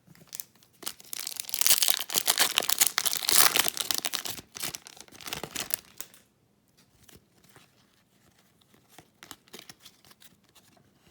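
Foil wrapper of a hockey card pack crinkling and tearing for about five seconds. After that come softer scattered clicks and rustles of cards being handled.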